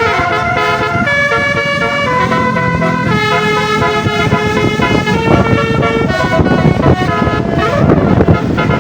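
Bus 'telolet' multi-tone musical horn playing a tune, several horn notes sounding together and stepping from pitch to pitch, over a low rumble. A rush of noise swells about seven to eight seconds in.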